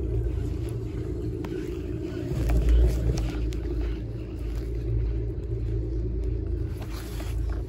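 Steady low rumble of a ride on a Heron-Poma chairlift, heard through a phone's microphone. It swells briefly about two and a half seconds in, with scattered faint clicks.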